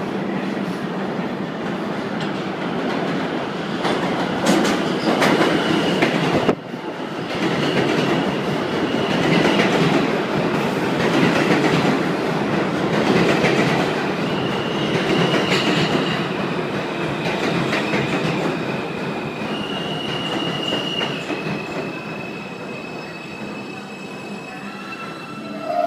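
R160 subway train entering an underground station and slowing to a stop: a loud, steady rumble and clatter of wheels on the rails. From about halfway through come high, steady whining tones that step down in pitch as the train slows.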